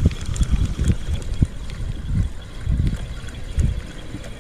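Wind gusting across the microphone in irregular low rumbles.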